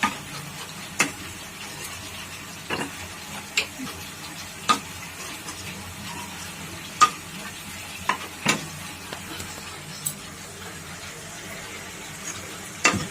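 A spoon stirring a cornflour-and-water slurry in a small bowl, clinking against the bowl about eight times at uneven intervals, over a steady sizzle of frying.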